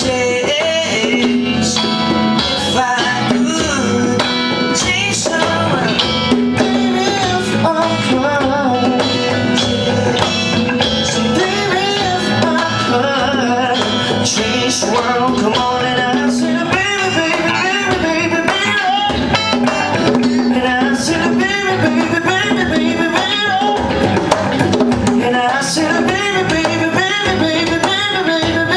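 A live band performing a soft pop-rock song: a man singing lead into a microphone over electric guitar, bass guitar and drums.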